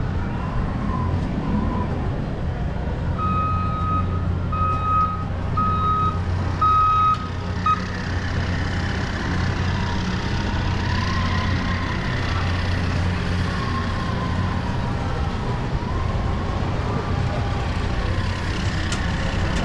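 Reversing alarm on construction equipment beeping four times, over a steady low rumble of heavy machinery.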